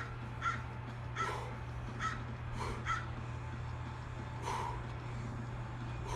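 Short, forceful breaths out through the mouth, one with each repetition of a dumbbell overhead triceps extension: several in quick succession in the first three seconds, then fewer. A steady low hum runs underneath.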